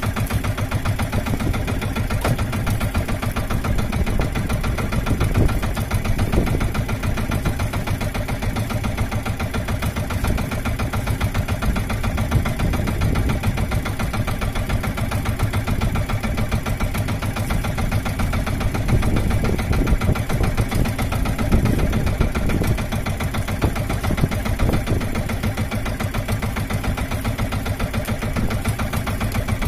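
The small engine of a motorized outrigger fishing boat running steadily, a fast even putter that does not change.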